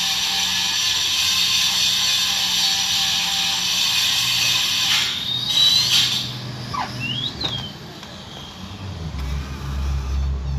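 Electric power saw running with a steady high whine, then cutting off about five to six seconds in. A few short squeaks follow, then a low rumble.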